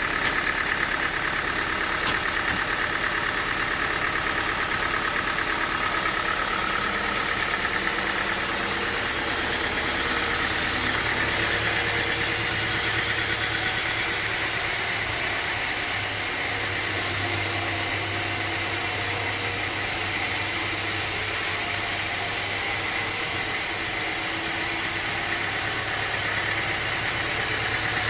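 Engine-driven sawmill machinery running steadily with a constant whine, joined by a high hiss for about ten seconds in the middle.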